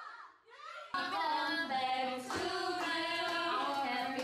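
Women's voices singing together, starting about a second in after a brief near-quiet moment, with held notes.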